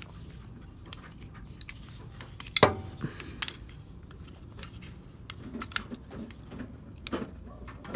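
Scattered light clicks and clinks of the small metal and plastic parts of a Mazda RX-7 FD outside door handle being handled and fitted together, with one sharper knock about two and a half seconds in.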